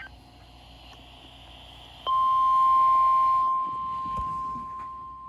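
NOAA Weather Radio's 1050 Hz warning alarm tone, the signal that a new warning follows. After about two seconds of faint radio hiss, a single steady high beep starts abruptly and loud, then drops in level about a second and a half later.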